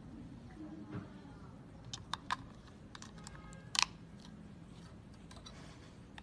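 AA batteries being pressed into a plastic battery compartment with metal spring contacts: scattered small clicks and taps, the loudest a double click a little before four seconds in.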